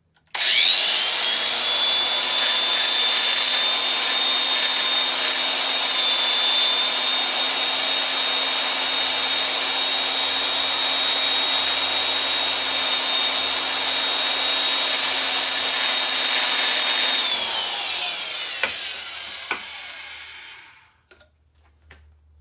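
Electric valve seat grinder starting up with a quickly rising whine, then running steadily while its grinding stone is dressed to a 45-degree face, a high grinding hiss over the motor whine. About 17 seconds in it is switched off and winds down with a falling whine.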